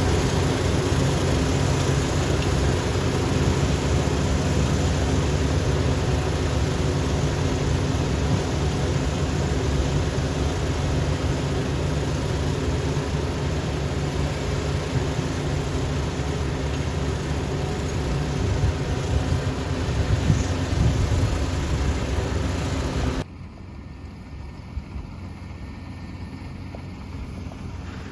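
Kubota ER470 combine harvester's diesel engine running steadily, its hum mixed with the noise of the harvester's machinery. About 23 seconds in, the sound drops abruptly to a much quieter faint hiss.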